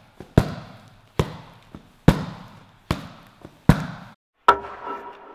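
Gloved punches smacking a leather focus mitt: forward and reverse punches landing in a steady rhythm, a sharp slap about every 0.8 s with a lighter tap between. About four and a half seconds in, a last hit is followed by a short ringing tone.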